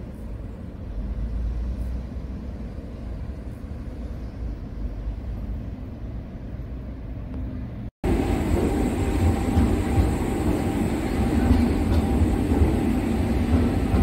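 A modern low-floor tram running along grass-covered track, a steady low rumble. After a sudden cut about eight seconds in comes louder, denser city street noise with traffic rumble.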